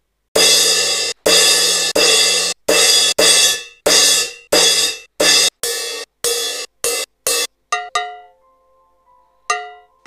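Drum-sampler percussion samples auditioned one after another, each cut off by the next: about fifteen hits, first a run of cymbal samples including a sizzle cymbal, getting shorter toward the end, then a few short pitched metallic hits.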